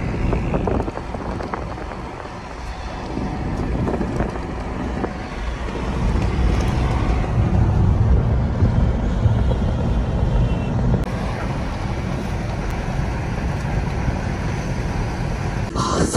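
Steady road and engine rumble of a Toyota car being driven, heard from inside the cabin. It grows louder for a few seconds around the middle, then settles.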